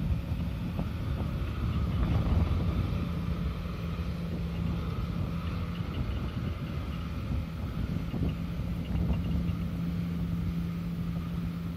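Tractor engine running steadily as it pulls an implement through a flooded rice paddy: a constant drone over a low rumble, briefly weakening about halfway through.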